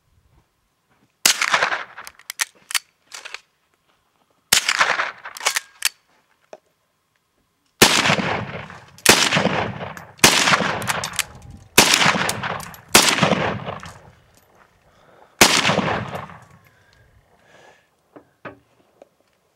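Rifle fired eight times: two single shots a few seconds apart, then a quick string of five shots a little over a second apart, then one more. Each shot rings on in a long echo, and a few faint clicks follow the first two shots.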